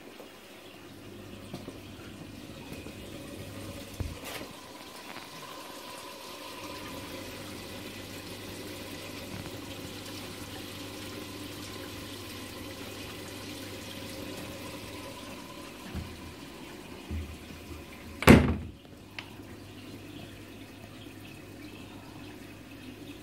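Water trickling and splashing in a reef aquarium's sump, over a low steady pump hum. A single loud sharp knock about eighteen seconds in.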